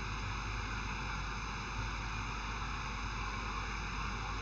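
Steady background hiss of the recording, with a faint low hum and several faint, steady high-pitched tones under it.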